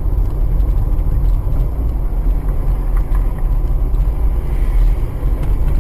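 Steady low rumble of engine and road noise inside a moving car, picked up by its dashcam.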